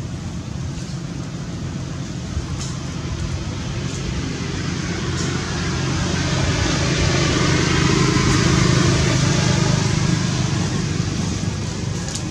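Steady low rumble and hiss of background traffic-like noise, growing louder through the middle and easing off near the end.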